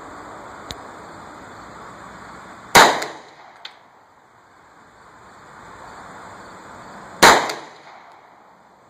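Two gunshots from a Hi-Point .40 S&W carbine, about four and a half seconds apart, each followed by a short echo.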